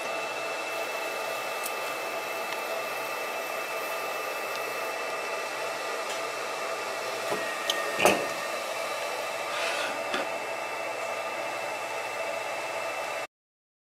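MarkStar Pro handheld marker, a 20-watt Q-switched fiber laser with a galvo scanning head, running as it engraves: a steady fan-like hiss with a faint high whine. There are a few faint clicks and a sharper knock about eight seconds in, and the sound cuts off abruptly near the end.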